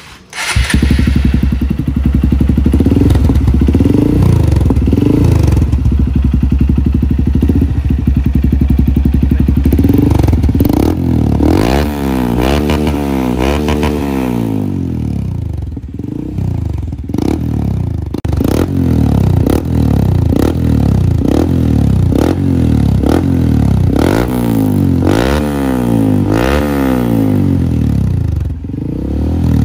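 Honda CRF150L's single-cylinder four-stroke engine running through a Norifumi NF series aftermarket exhaust. It comes in about half a second in and idles steadily, then from about ten seconds on it is revved in repeated throttle blips that rise and fall.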